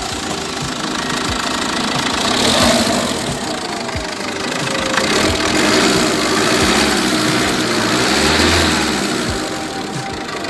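Renault Mégane III diesel engine idling with an even ticking diesel clatter, now sitting on a freshly replaced engine mount.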